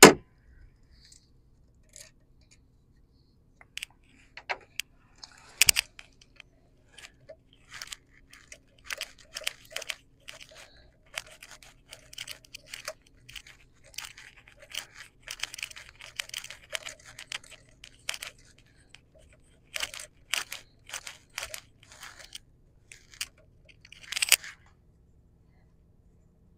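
Ratchet wrench clicking in short irregular runs, with metal taps and scrapes, as it works the terminal nuts on a diesel bus engine's glow plug relay. A sharp click right at the start, and louder metal knocks about six seconds in and again near the end.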